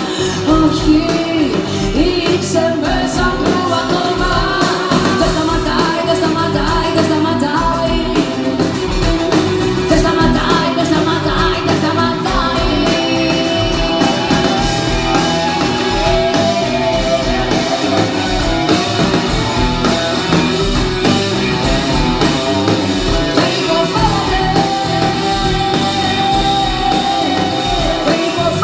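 Live rock band playing, with a woman singing long, held notes into a microphone, heard from within the audience.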